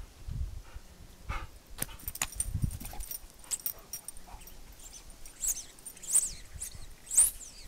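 Dogs playing on grass: short low huffs and thumps with scattered clicks in the first few seconds, then a few quick high-pitched chirping squeaks near the end.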